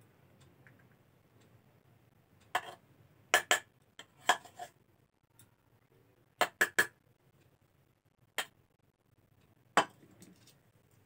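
Metal ladle and aluminium pot clinking and knocking against a steel plate while rice is served out, about ten sharp metallic clinks in short clusters with a brief ring after each.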